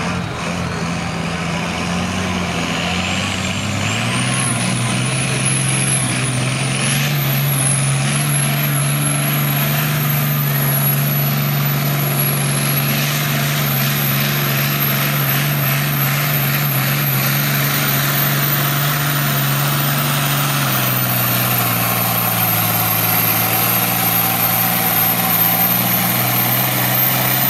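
Turbocharged International 1066 diesel tractor at full throttle, pulling a weight sled down a pulling track. The engine note is steady and dips slightly about two-thirds through. Over it, a high turbo whistle climbs in pitch over the first few seconds and then holds high.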